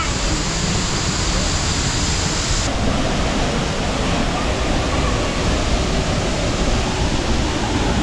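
Cedar Falls pouring onto rocks close by: a loud, steady rush of falling water and spray, with a shift in its sound about three seconds in.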